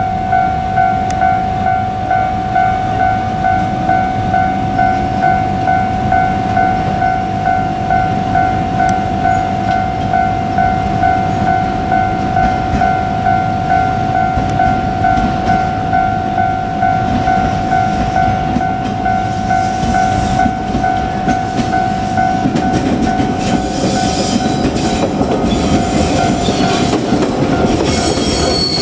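Japanese level-crossing warning bell ringing with a rapid, regular electronic ding-ding. From about two-thirds in, a JR Kyushu 817 series electric train's running noise and wheels on the rail joints build up loudly as it passes over the crossing. A high wheel squeal begins right at the end.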